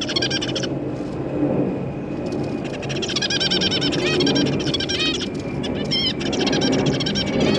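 Zebra finches calling: runs of quick, repeated nasal beeps, with a pause of about two seconds after the first run, over a steady low hum.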